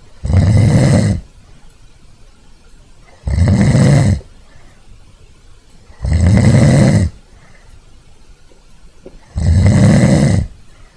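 A person snoring: four snores, each about a second long, coming roughly every three seconds.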